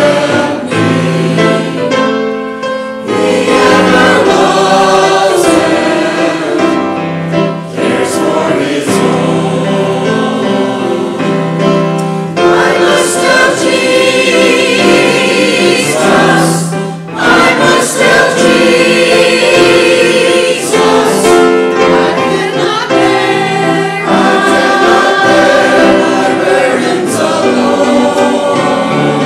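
Church choir of mixed men's and women's voices singing, full and continuous, with brief dips between phrases about 3 and 17 seconds in.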